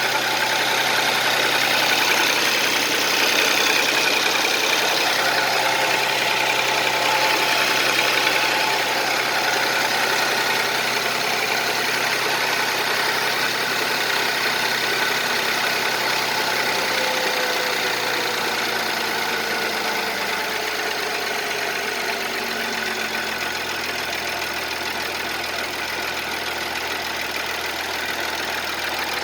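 Audi 3.0 TFSI (CAJA) supercharged V6 idling with a knock (the fault the owner is recording). The engine note steps down a little about two-thirds of the way through as the idle settles lower.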